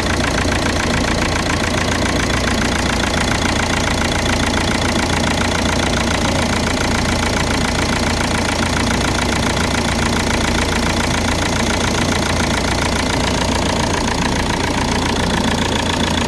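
Engine idling steadily with an even, rapid pulse, running again after a no-start fault was fixed.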